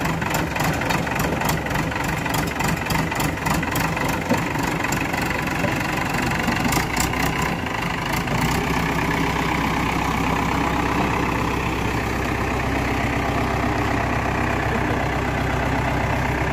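Backhoe loader's diesel engine running steadily while the front bucket tips a load of soil into a tractor trailer, with rattling as the soil drops in during the first half. About halfway in the engine settles into a steadier low hum as the machine backs away.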